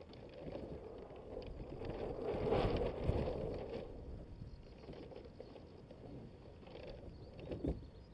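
Water rushing and splashing along the hull of a Hobie Adventure Island sailing kayak under sail. The noise swells for a second or so near the middle, and there is a short knock near the end.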